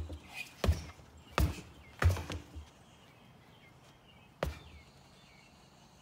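16 oz boxing gloves punching a stack of rubber car tires, each punch a dull thud. Four punches come in quick succession in the first two and a half seconds, then a single punch about four and a half seconds in.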